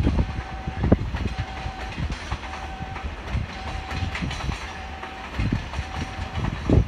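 Loaded container wagons of a departing freight train rolling past, their wheels clacking and knocking over rail joints, with a heavy knock about a second in and another near the end. A short steady beep repeats about once a second behind it.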